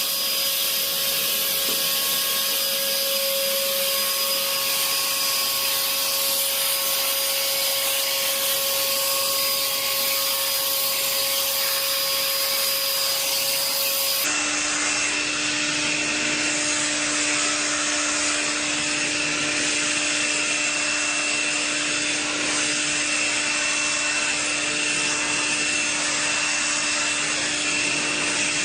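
Household vacuum cleaner running steadily, with a hiss of suction and a motor whine. About halfway through, the whine jumps abruptly to a lower pitch.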